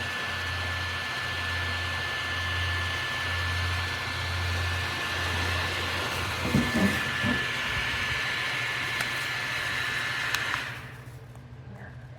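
FrSara rechargeable neck fan running, a steady rush of air with a constant high whine from its motor, with a few soft handling knocks partway through. The fan sound stops suddenly about ten seconds in.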